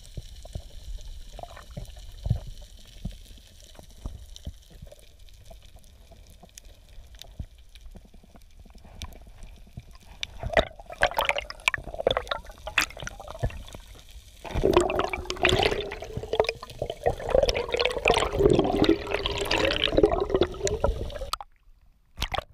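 Underwater sound picked up by a diver's action camera over a reef: a rush of water with scattered crackling clicks. In the second half it grows into a louder, gurgling stretch with a wavering pitched tone. This cuts off suddenly as the camera breaks the surface near the end.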